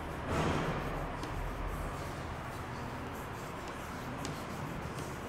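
Chalk writing on a chalkboard: light scratching strokes and a few small taps over steady room noise.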